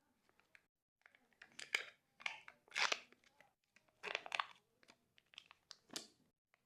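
Plastic candy wrapper being crinkled and torn open in a series of irregular crackly bursts.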